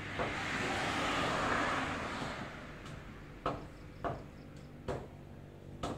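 A cleaver chopping pork on a chopping block, sharp knocks at uneven intervals, four in the second half. Before the chops, a rushing noise swells and fades over the first two seconds or so.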